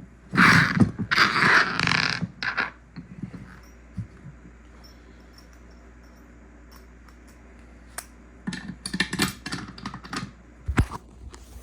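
Rustling, scraping handling noise for the first few seconds, then a quiet stretch with a low hum, then a run of small metal clicks and rattles near the end: steel bolts and lock washers being handled.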